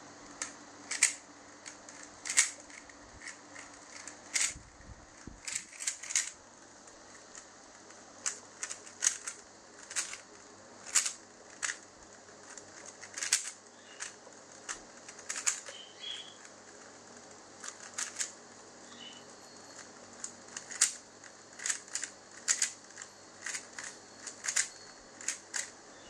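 Plastic 3x3 Rubik's cube being turned by hand: sharp clicks and clacks of the layers snapping round, coming in irregular quick bursts with short pauses between.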